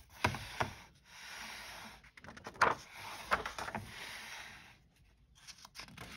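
Pages of a hardcover picture book being turned by hand: paper rustling and sliding, with a few soft taps and flaps as the pages and cover land.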